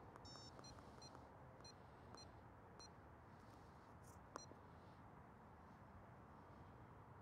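Faint short electronic key beeps from a handheld RigExpert Stick Pro antenna analyzer as its buttons are pressed: a string of quick beeps over the first three seconds and one more with a sharp click about four seconds in, over a low hiss.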